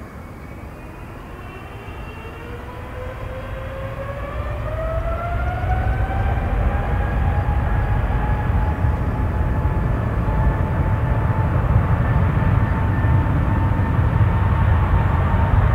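Jet airliner's engines spooling up: a whine rises in pitch over the first six seconds and then holds steady, while a deep rumble grows steadily louder.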